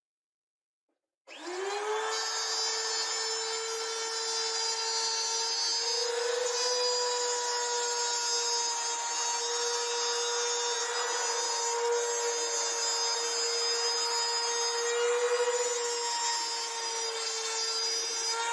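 Compact trim router switched on about a second in, its motor spinning up to a steady high whine, then running as the bit cuts a shallow groove into laminated chipboard.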